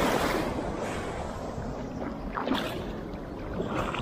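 Rushing white water churning around a kayak's hull as it runs out of the turbulent water below a weir, loudest at first and then easing off. A couple of short splashes come about two and a half seconds in and again near the end.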